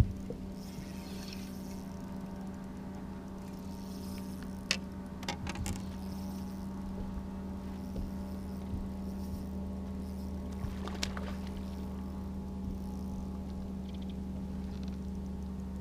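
Steady low electric hum from a bass boat's motor, with a few short sharp clicks and knocks about five seconds in and again near eleven seconds.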